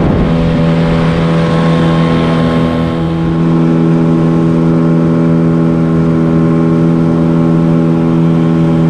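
Boat motor running at a steady, unchanging speed while the boat travels upriver, with the rush of water along the hull.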